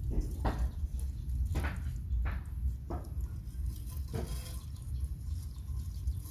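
Live crabs moving in a shallow metal basin with a little water: about five short wet scrapes and splashes, roughly a second apart, over a steady low rumble.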